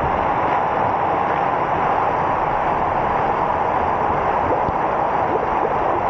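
Stream water pouring over a small check dam wall at close range: a steady, loud rush.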